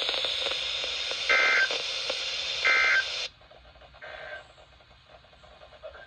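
Weather radio receiver playing broadcast hiss with short digital data bursts: the SAME end-of-message code that closes a NOAA Weather Radio alert, three bursts about 1.4 s apart. The receiver's audio cuts off suddenly about three seconds in, so the third burst is faint.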